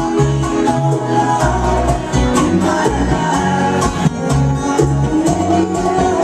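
Bachata music playing loudly, with guitar and bass over a steady beat.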